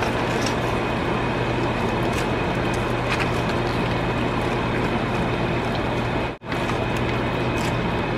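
Steady mechanical hum with an even rushing noise, like a running kitchen fan, with a few faint ticks; it cuts out for an instant about six seconds in.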